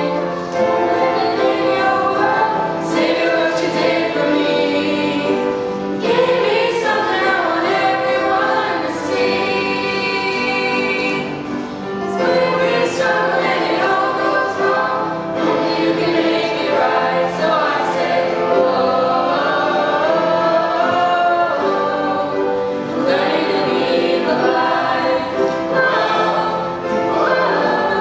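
A small group of teenage girls singing a hymn together into microphones, with held notes and moving melody lines.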